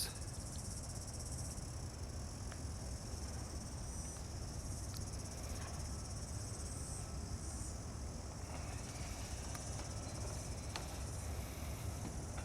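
Steady high-pitched insect chorus over a low outdoor rumble, with a few faint clicks.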